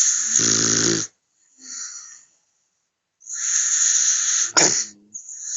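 Pit bull snoring in its sleep: two loud, rasping breaths about three seconds apart, each followed by a fainter one. The first has a low rattling snore in it, and the second ends in a sudden sharp catch.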